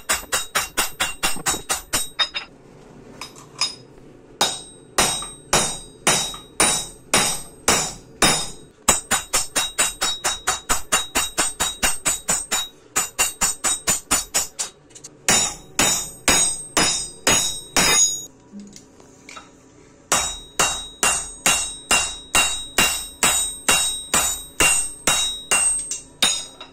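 Hammer blows on hot steel over an anvil, forging a fishtail gouge: runs of quick, ringing strikes, broken by short pauses about three, fourteen and nineteen seconds in.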